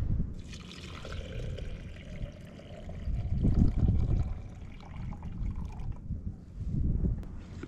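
Hot water poured from a stainless steel pot into a glass French press, a steady splashing trickle that rises slightly in pitch as the carafe fills and stops about six seconds in.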